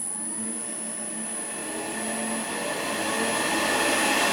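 Wood lathe's variable-speed motor running and speeding up: its whine rises in pitch and grows louder over the last couple of seconds, over a steady high-pitched whine.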